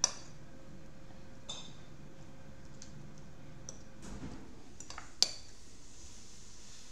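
Fork clinking and scraping against a salad bowl while salad is picked up, a few short sharp clicks spread through, the loudest a little after five seconds in.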